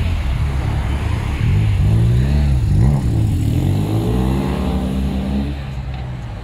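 Cars and a van driving past close by, their engines revving up and down in pitch as they pull away over a low engine rumble. The sound is loudest around the middle and fades near the end.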